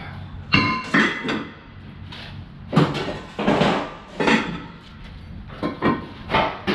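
Irregular metal clanks and bangs while scrap is being worked, about ten knocks over the few seconds, several ringing briefly.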